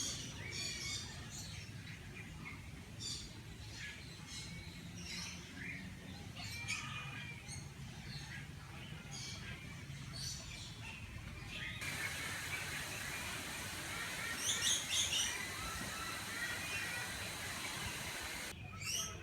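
Many birds chirping and calling, short high chirps throughout, with a louder run of rapid chirps about two-thirds of the way through.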